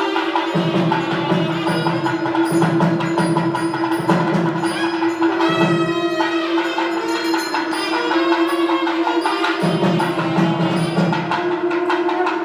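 Temple festival music: a steady held drone note under a melody line, with busy, rapid drum and percussion strokes.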